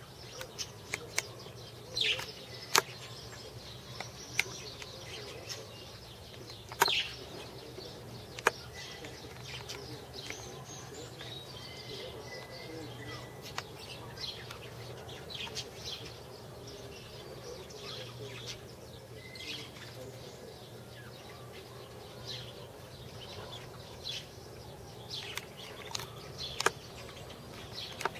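Outdoor background with faint bird chirps over a low steady hum, broken by scattered sharp clicks, a few of them loud, that come more often near the end.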